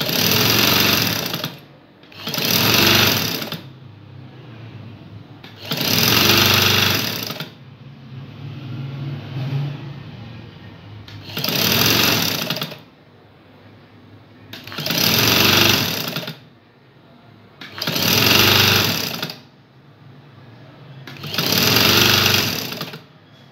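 Electric-motor-driven domestic sewing machine stitching through fabric in seven short runs of about a second and a half each, stopping between runs while the cloth is guided and repositioned.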